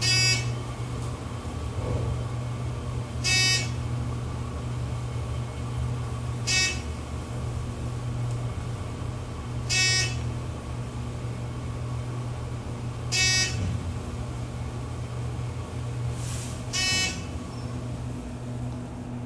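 A short electronic beep sounding six times, about every three and a half seconds, over a steady low hum.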